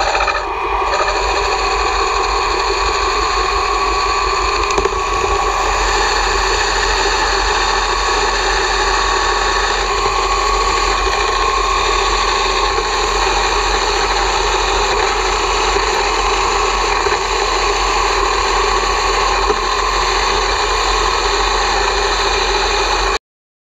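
1960s Swiss Lesto Scintilla lathe running steadily, turning high-tensile aluminium bar stock, with a constant mechanical whine and a low hum. Cuts off suddenly near the end.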